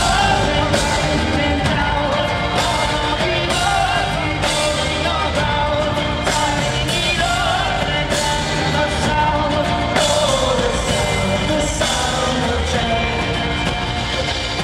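Live rock band playing a full song section: drums keeping a steady beat under guitars and bass, with sung vocals over it.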